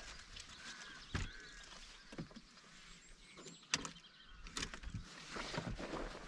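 Fishing gear being loaded into a car boot: a few separate knocks with light rustling and handling between them, the loudest knock just under four seconds in.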